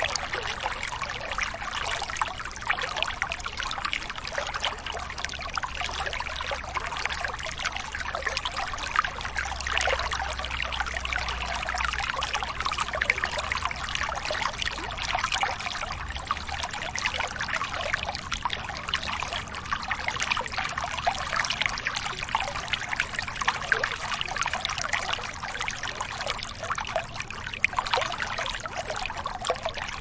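Steady trickling and splashing of running water, like a small stream, with no break. A faint low rumble under it stops about halfway through.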